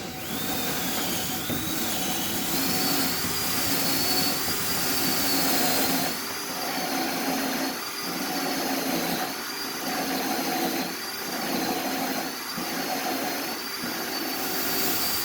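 Electric drill boring the cup hole for a concealed cabinet hinge into a wooden door through a clamped drilling jig. The motor runs steadily with a wavering high whine. From about halfway on, the load eases and returns about every second and a half as the bit is pressed into the wood.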